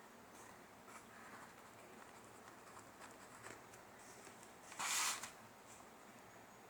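Quiet room tone with a few faint small noises, and one short hiss, about half a second long, near five seconds in.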